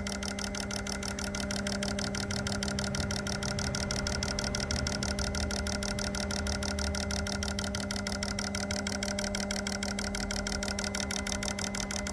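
Four fuel injectors firing on an Autool CT400 injector tester during its idle test: a rapid, even clicking over the steady hum of the tester.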